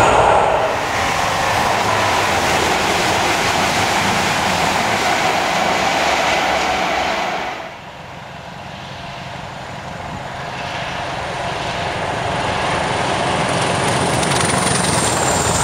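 Diesel train passing at speed, its engine and wheels on the rails loud and steady. The noise drops away suddenly about halfway through, then builds again as a train approaches.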